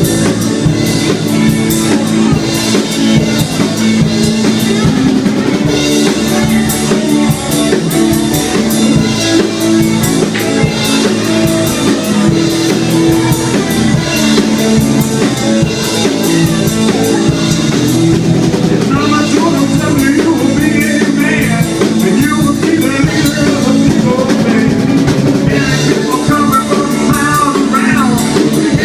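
Live rock band playing at full volume: drum kit and guitar, with wavering melodic lines, vocal or guitar, coming in over the second half.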